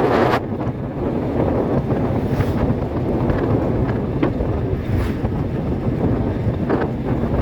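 Wind buffeting the microphone over the steady low rumble of a vehicle on the move.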